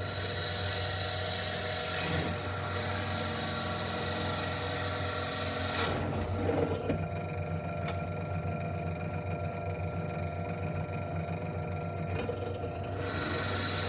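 Ryobi drill press running with a steady motor hum and whir; the sound shifts briefly about 6 seconds in and again near the end as the bit works into the wood pieces.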